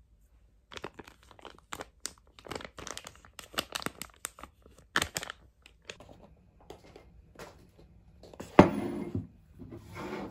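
Crinkling and tearing of paper or plastic packaging, many sharp crackles over several seconds. A sharp knock about eight and a half seconds in is followed by a short rushing noise, then another brief rush near the end.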